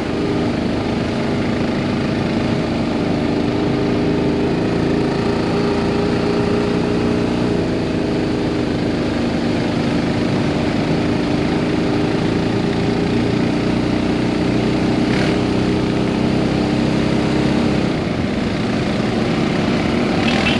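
ATV engine running steadily at cruising speed, heard from on board while riding, with the engine note easing briefly near the end.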